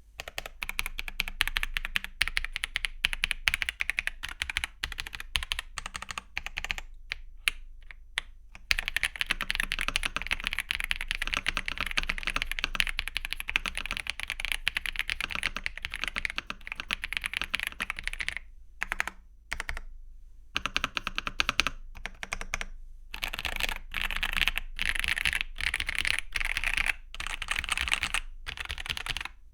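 Typing on an Ajazz AK820 Max mechanical keyboard with stock Ajazz Sea Salt linear switches and OEM-profile PBT keycaps: a fast, continuous stream of keystrokes, slowing to a few separate key presses about a quarter of the way in and again about two-thirds of the way through.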